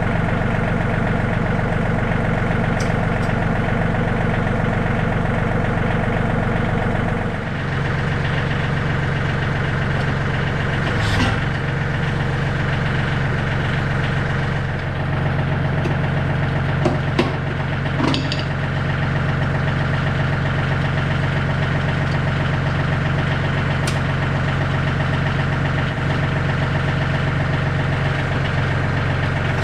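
John Deere 3320 compact tractor's diesel engine idling steadily, its note shifting slightly about seven seconds in. A few short metallic clinks are heard around the middle.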